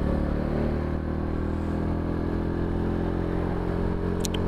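Mondial SFC 50 cc scooter engine running steadily under way, its pitch easing slightly then holding. Two short high-pitched ticks near the end.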